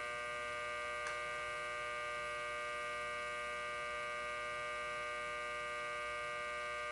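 Steady hum from the horizontal boring mill, made up of several high, even whining tones, with one faint click about a second in.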